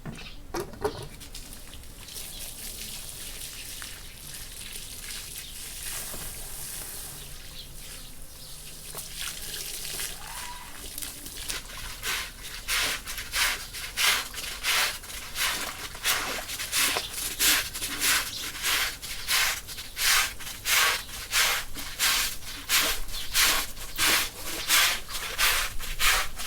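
Rhythmic scrubbing strokes from a stiff brush, about two a second, starting about twelve seconds in and growing louder. Before them there is only faint outdoor background.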